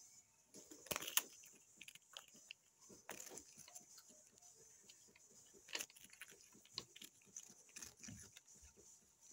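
Two tabby kittens chewing and crunching on a hard biscuit: faint, irregular crunches and clicks, the loudest about a second in.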